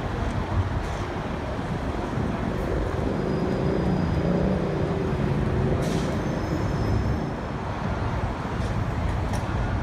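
New York City subway train running on elevated track: a steady rumble that grows fuller a few seconds in, with a faint high whine over it.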